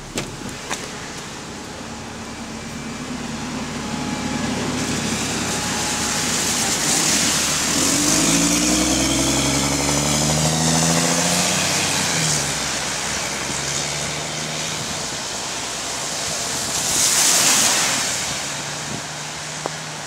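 Double-decker bus with an exhaust leak pulling away from the stop: its engine builds up, runs loudest for a few seconds with its pitch gliding up and down as it accelerates, then fades away. Near the end a car passes with a hiss of tyres on the wet road.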